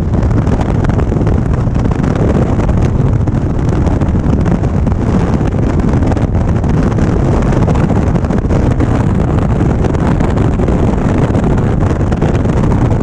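Steady wind rumble buffeting the microphone on an Indian Springfield motorcycle riding at speed, an even, heavy low roar with no breaks.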